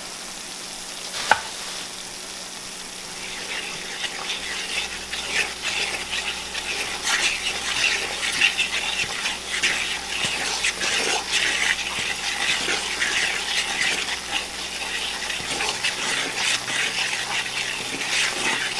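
Flour sizzling in hot oil in a skillet as a gravy roux, with a single tap near the start. From about three seconds in, a fork scrapes and stirs quickly against the pan in an irregular, scratchy rhythm.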